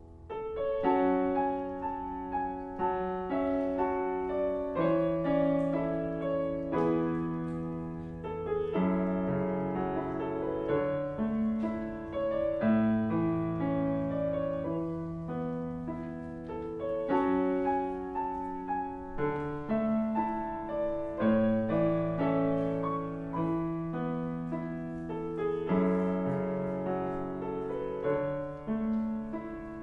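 Grand piano played solo: a piece of sustained chords and a melody line, the notes changing about once a second, starting in earnest about half a second in.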